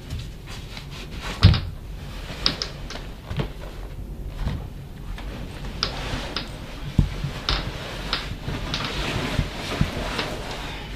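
Irregular light knocks and clicks, about a dozen of them, over low room noise; the loudest knock comes about one and a half seconds in.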